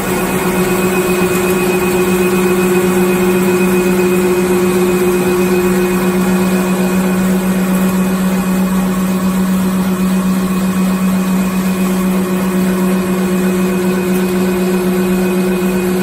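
Automatic napkin paper folding machine running steadily at speed: a loud, constant mechanical hum with a steady low drone and a fainter high tone above it.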